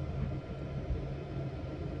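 Jet aircraft engines running steadily while the aircraft taxis, heard from inside the cockpit: a low steady drone with a faint high whine above it.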